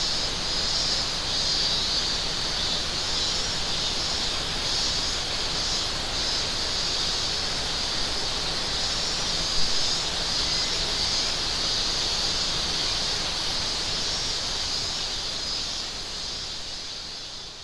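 Cicadas shrilling steadily in a high band over the constant rush of a mountain river. A brief sharp tap sounds about halfway through, and everything fades out near the end.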